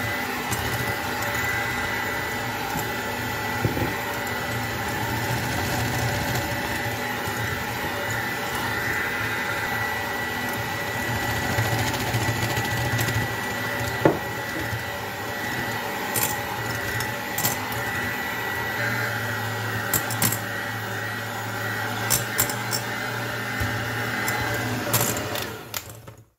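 Electric hand mixer running steadily at speed, its beaters whipping egg whites and sugar into a firm meringue in a glass bowl, with scattered sharp clicks. The motor stops near the end.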